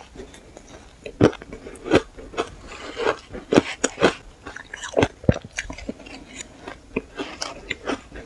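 Close-miked biting and chewing of powdery shaved ice: irregular sharp crunches and crackles, several a second, as the ice is crushed between the teeth.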